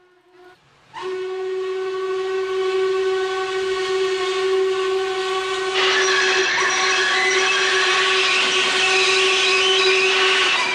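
Steam locomotive whistle sounding one long, steady blast that starts about a second in, with a rush of steam hiss joining about halfway through.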